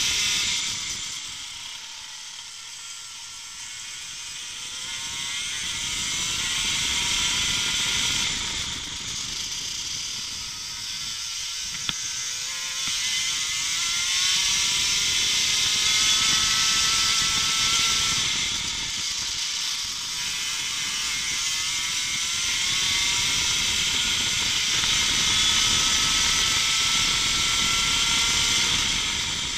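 Racing kart engine heard onboard at speed, its pitch climbing as it accelerates out of corners and falling away under braking, several times over, with a steady hiss over it.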